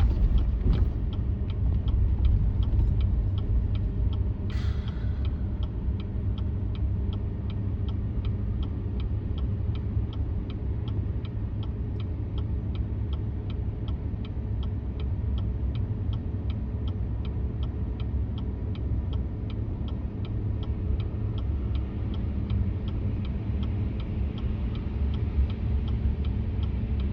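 Steady low rumble of the 4x4 Chevy 3500 dually pickup's engine and tyres, heard from inside the cab while it tows a heavy trailer on a snow-packed road. From about four seconds in, the indicator clicks evenly at two to three ticks a second. There is a single sharp knock a few seconds in.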